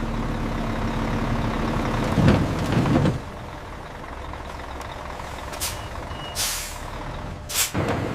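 Industrial machinery running with a steady hum, then a heavy rumbling clatter about two seconds in. Several sharp hisses of compressed air follow in the second half, with two short beeps.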